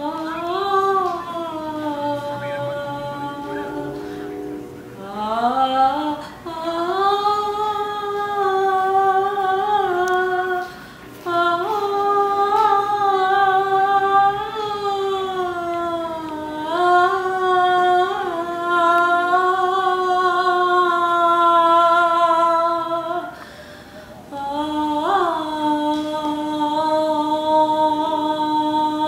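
Wordless unaccompanied singing: a single voice holds long notes that slide slowly up and down in pitch, breaking off briefly about 11 and 24 seconds in.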